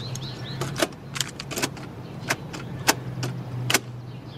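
A portable cassette boombox being handled as a tape is loaded: a run of sharp, irregular plastic clicks and clatter from the tape deck and its buttons.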